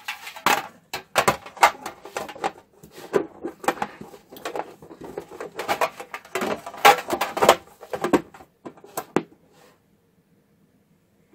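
Thin tinplate chocolate tin and its lid clattering and knocking as the lid, with the speakers mounted in it, is handled and fitted onto the tin: a run of sharp metallic knocks with a slight ring, dying away near the end.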